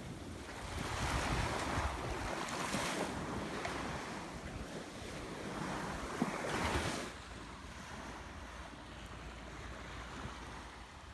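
Wind buffeting the microphone over small bay waves washing onto a sandy shore, in swelling surges that ease about seven seconds in.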